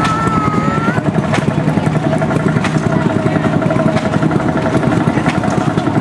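Vintage engines running with a fast, steady beat. A brief high, slightly wavering tone sounds in the first second.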